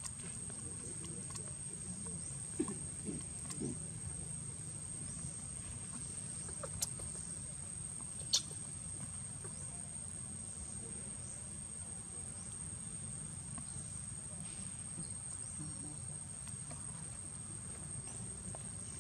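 Steady high-pitched insect drone over a low background hush, with a few brief faint clicks, the sharpest about eight seconds in.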